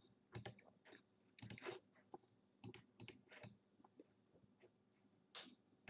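Faint, irregular clicks and taps of a computer keyboard and mouse.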